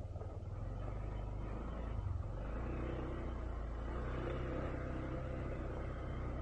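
Honda ADV 160 scooter's single-cylinder engine running steadily as the scooter rides along a rough dirt track, a low steady rumble.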